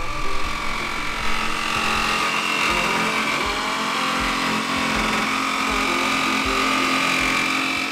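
Cordless jigsaw running steadily as it cuts through a plywood panel, a continuous motor whine with blade chatter.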